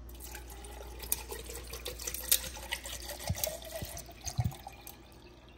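Water poured from a plastic bottle into a stainless-steel insulated tumbler full of ice: a splashing, gurgling fill whose pitch rises as the cup fills, with sharp clicks from the ice cubes.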